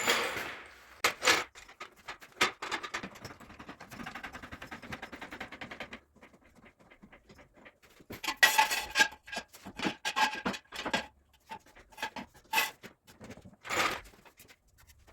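Mechanic's hand tools at work: a ratchet wrench clicking rapidly for a few seconds, then metal tools clinking and knocking, some with a short ringing tone.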